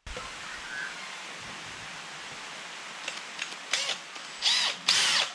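A cordless drill boring into aluminium checker plate. After a steady hiss, short bursts of drilling begin about three seconds in and grow louder near the end, with a squealing whine that bends in pitch as the bit bites the metal.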